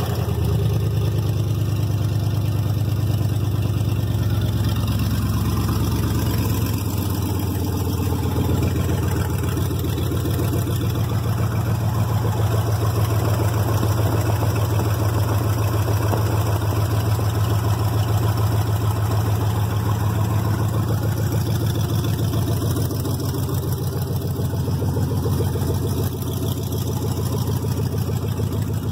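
1999 Chevy Silverado 1500's 5.3 LS V8 catching at the start, then idling steadily with its catalytic converters cut off; the idle settles slightly about seven seconds in. It runs smoothly now that a good mass airflow sensor is plugged in.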